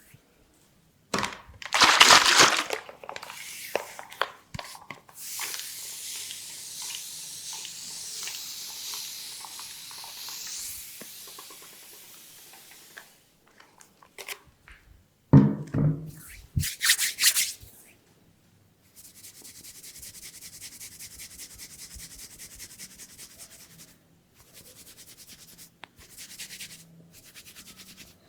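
Hands rubbing and scratching over hair and scalp in a head massage: separate bursts of dry friction noise, a long steady rub, and about two-thirds of the way in a run of quick, even strokes.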